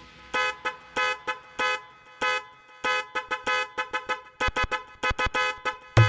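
Remix dance music in a break without the bass: short honking horn-like stabs repeat about three or four times a second, coming faster near the end.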